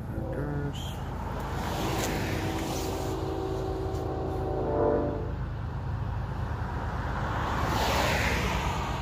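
Horn of an approaching Union Pacific GE C45ACCTE locomotive sounding a chord in the distance: a short blast near the start, then a steady blast of about three seconds that cuts off about five seconds in. A road vehicle then passes with a swelling whoosh of tyre noise.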